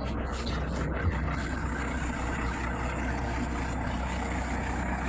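A large engine running steadily at idle, with a constant low hum.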